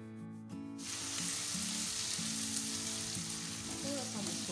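Chopped onions sizzling in hot oil in a frying pan with whole spices and ginger-garlic paste, being stirred with a wooden spatula. The sizzle cuts out for a moment near the start, then runs on steadily.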